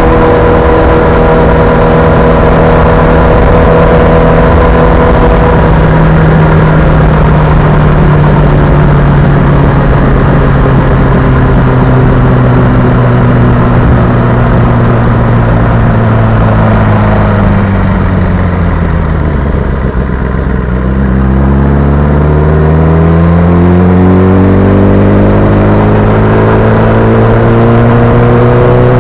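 Kawasaki ZX-10R's inline-four engine running under way over heavy wind rush. Its pitch falls slowly for about twenty seconds as the bike slows, then rises smoothly through the last several seconds as it accelerates again.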